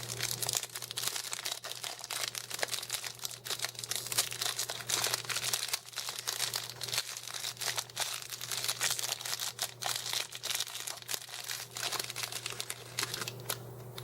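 Plastic wrapper crinkling and tearing as it is pulled open, a long steady stream of crackles.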